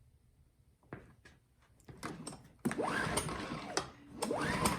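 Recoil pull-starter of a Yamaha-powered inverter generator pulled twice, about three seconds in and again near the end. Each pull spins the engine over with a rising whir, but it does not fire. The low-oil alarm blinks during the pulls, which the mechanic suspects is why it won't start.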